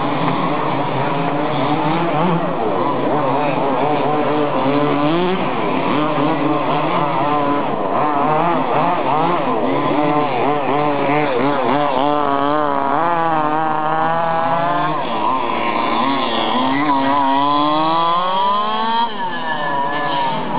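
Several 1/5-scale HPI Baja RC buggies' small two-stroke petrol engines revving, overlapping, their pitch rising and falling as they accelerate and back off; one climbs in a long rising sweep near the end.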